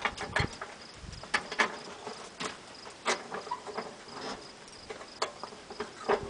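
Scattered, irregular clicks and knocks of hands working on a lawn tractor's wheels and deck fittings, with a cricket chirping steadily and faintly in the background.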